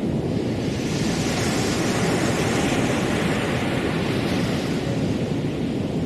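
Small waves breaking and washing up a sandy beach, a steady rush of surf that swells for a few seconds in the middle.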